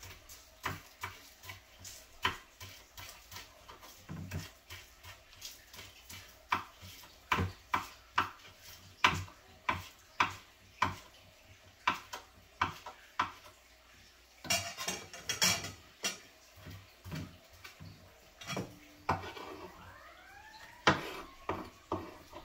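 Kitchen knife chopping green onion on a wooden cutting board: separate knocks at an uneven pace, about one or two a second. Near the end there is a spell of scraping and metal clinking from a spoon in a stainless steel bowl.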